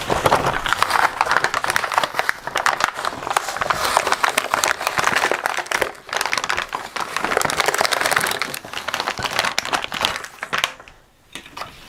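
Toy play set packet crinkling and crackling as it is torn open and handled, with a brief lull near the end.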